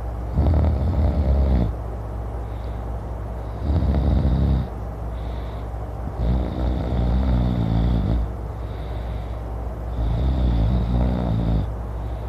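A man snoring loudly: four snores, each one to two seconds long, about three seconds apart.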